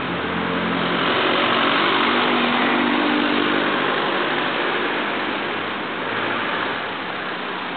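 Street traffic: cars driving past a pedestrian crossing one after another, a steady engine and tyre noise that swells about two seconds in and again around six seconds.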